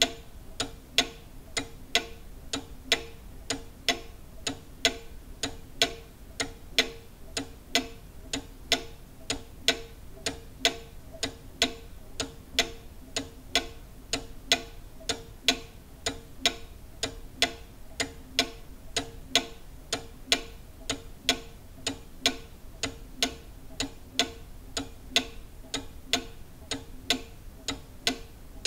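Cuckoo clock ticking steadily, about two even ticks a second.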